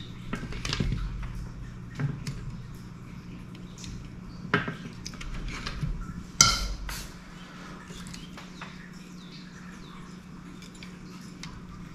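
Metal hand tools and a soldering iron being handled and set down on a wooden workbench: a few sharp clinks and knocks, the loudest about six and a half seconds in, amid quieter rustling.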